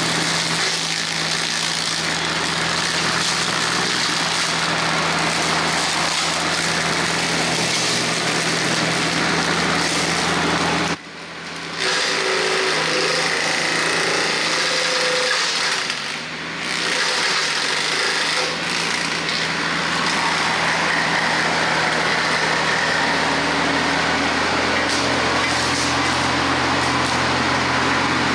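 TYM T474 tractor's diesel engine running steadily under load while the front-mounted Hardee Brush Tiger hydraulic rotary cutter chops through brush and undergrowth, a dense mechanical din over a steady engine hum. The sound drops away sharply for about a second, about eleven seconds in.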